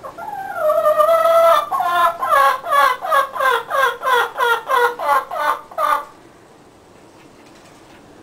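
A chicken calling: one long drawn-out note, then a run of about a dozen short falling notes, about three a second, that stops about six seconds in.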